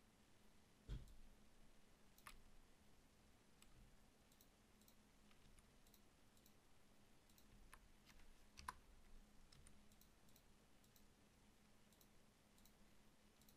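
Near silence with faint, scattered computer mouse clicks, the loudest about a second in and another near nine seconds in, over a faint steady hum.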